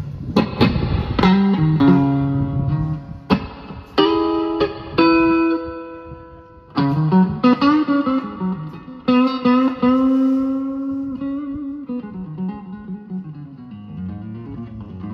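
Electric guitar, a Delaney played through a Fender Super Reverb amp, picking loose single notes and chords that ring out, with string bends and vibrato. It grows quieter over the last few seconds.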